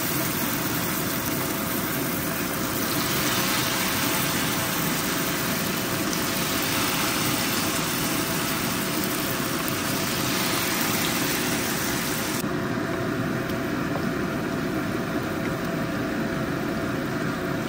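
Mixed-vegetable pakoras in maize-flour batter deep-frying in hot oil in a pan: a steady sizzle, with a faint steady hum beneath.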